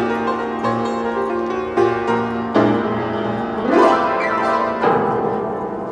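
Background music led by piano, a run of sustained notes struck roughly once a second, with a rising glide near the end.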